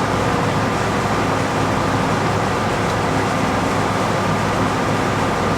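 Steady mechanical hum with an even rushing noise, unchanging throughout, with no separate clicks or knocks.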